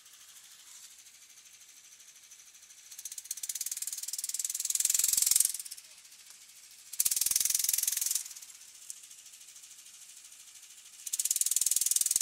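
Argo amphibious ATV's small petrol engine revving hard in three surges under throttle as it climbs a steep slope, dropping back to a faint idle between. The first surge builds over about two seconds; the other two are shorter.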